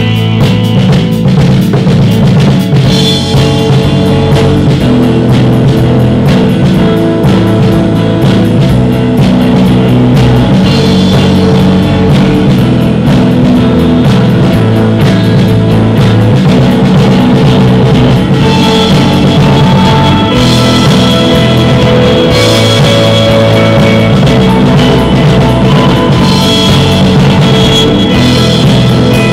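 Live instrumental post-rock band playing: drum kit driving a steady beat under sustained, layered electric guitars and bass.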